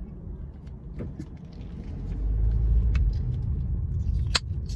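Low rumble of a car driving, heard from inside the cabin, growing louder about two seconds in, with a few short sharp clicks, the loudest near the end.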